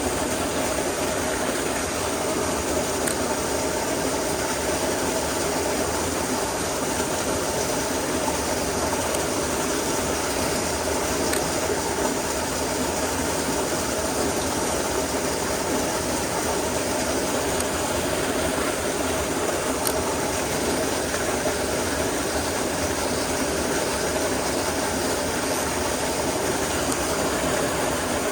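Mountain stream rushing steadily: an even, unbroken noise of running water.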